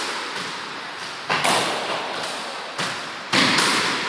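Squash ball being hit by the racket and striking the court walls and floor: a series of sharp knocks, each with a short echo off the walls.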